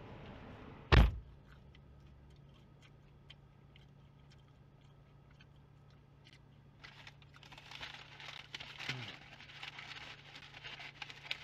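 A car door shuts with one heavy thunk about a second in, followed by a steady low hum inside the car. From about seven seconds in come crinkling, rustling and small clicks of someone eating McDonald's fries from a bag.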